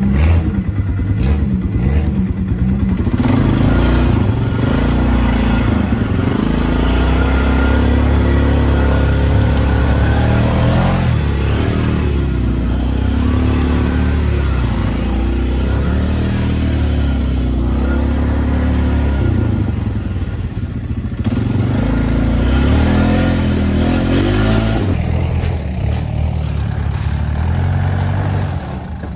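Off-road vehicle engine running hard on a muddy trail, revving up and down as it climbs and drives.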